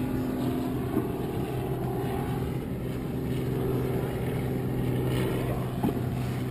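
Motorboat engine running at a steady hum, with the wash of choppy water around the hull.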